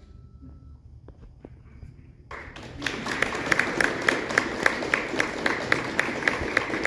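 Audience applause breaking out about two and a half seconds in, after a short hush, with one nearby pair of hands clapping about three times a second. Before it, the last faint handbell tone dies away amid a few small clicks.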